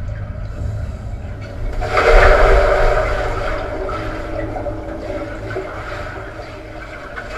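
A person jumping into a swimming pool, heard from underwater: about two seconds in, a muffled rush of water and bubbles swells up and slowly fades. A low steady rumble runs beneath it.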